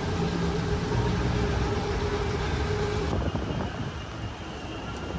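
City traffic noise: a steady rumble of vehicles with a sustained hum. About three seconds in it cuts abruptly to a quieter outdoor ambience.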